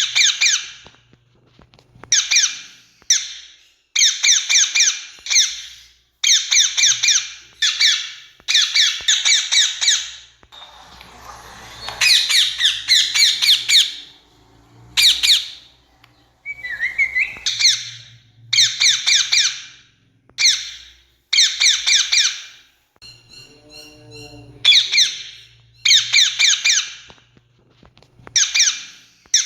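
Rose-ringed parakeet giving harsh, shrill screeching calls over and over in short bouts, each about half a second to two seconds long, with brief pauses between them.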